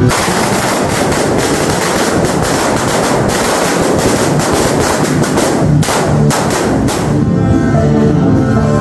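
A higad, a long belt of small firecrackers, going off in rapid, continuous crackling that thins out after about seven seconds. Background music runs underneath.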